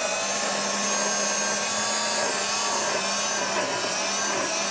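Countertop blender motor running steadily, blending fresh herbs, garlic, peppers and olive oil into a chimichurri sauce.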